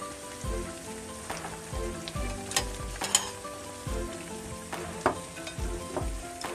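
Leafy greens boiling in water in a wok, bubbling and sizzling with scattered sharp pops. Background music with held notes and a steady low beat plays throughout.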